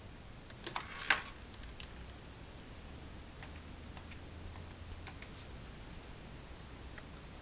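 Handling of a corded bedside phone: a few sharp clicks and knocks about a second in, then scattered soft clicks as its keypad buttons are pressed one by one to dial.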